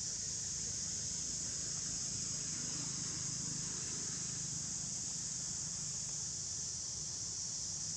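Steady, high-pitched insect chorus that holds unchanged throughout, with a faint low rumble underneath.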